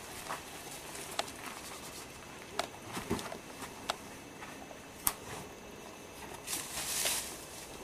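Boulderer's hands and climbing shoes on the rock as he pulls onto the problem and moves up: a few scattered sharp taps and scuffs, then a longer brushing sound near the end.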